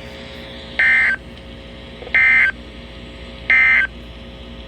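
Three short bursts of Emergency Alert System SAME digital data tone, a warbling two-pitch buzz, evenly spaced about a second and a third apart: the end-of-message signal that closes the severe thunderstorm warning.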